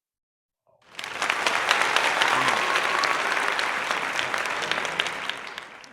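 Crowd applause with many overlapping claps, starting abruptly about a second in after a moment of dead silence and fading out near the end.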